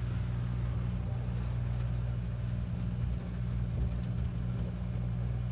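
Steady low mechanical hum of a running machine, an engine-like drone that holds even with no change.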